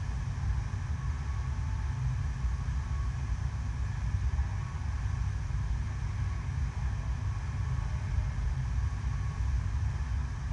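Rushing water of an indoor artificial sheet wave, its water jetted up the ride surface in a steady deep rumble.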